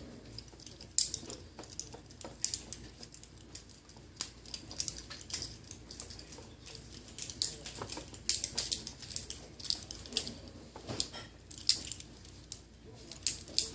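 Homemade LEGO Technic butterfly knife being flipped: irregular light clicks and clatters as the plastic beams swing and knock together on their pins.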